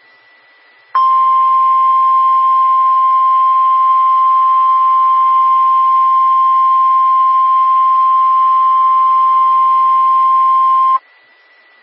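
NOAA Weather Radio warning alarm tone: a single steady 1050 Hz tone sounding for about ten seconds, starting about a second in and cutting off sharply, the signal that a warning broadcast, here a test tornado warning, follows. Faint radio hiss is heard before and after it.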